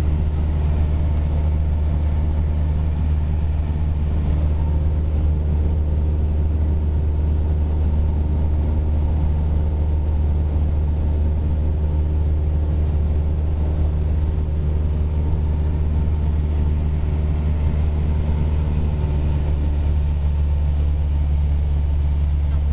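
Cessna 172's piston engine and propeller running steadily, heard from inside the cabin in flight as a constant low drone.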